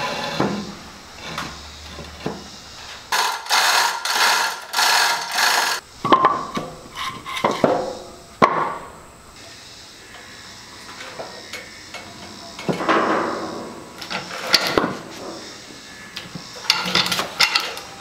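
Handling noises from working a heavy log onto a band sawmill: a concrete block scraped on a concrete floor, then short runs of rattling metal chain and ratcheting, with sharp knocks of a steel cant hook biting into the log.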